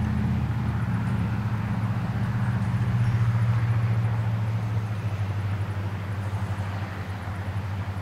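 Steady low engine drone with a deep, even hum, easing off slightly in the second half.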